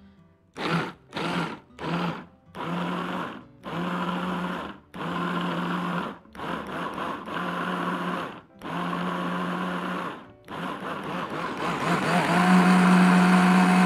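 Electric blender pulsed about nine times in short bursts, then run steadily for a few seconds near the end, chopping tomatoes, peppers and garlic into small pieces for a chunky daqqus rather than a smooth juice.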